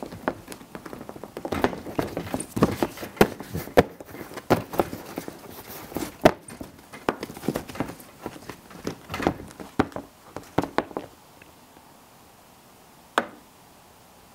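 Bare hands slapping, patting and smearing wet paint on paper on a wooden easel board: a fast, irregular run of taps and slaps that stops about eleven seconds in, with one more knock near the end.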